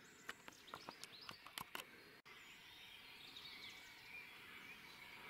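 Faint song of a male western capercaillie: a run of dry clicks that quicken over about two seconds, followed by a soft, high hissing phrase. It is a young bird whose song is still short and broken.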